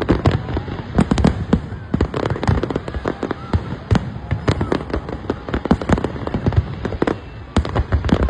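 New Year fireworks going off without a break, with many overlapping bangs and crackles, several a second.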